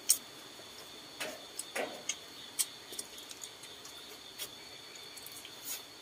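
Scattered, irregular soft clicks and smacks from people eating fried chicken, over a faint steady high-pitched insect drone.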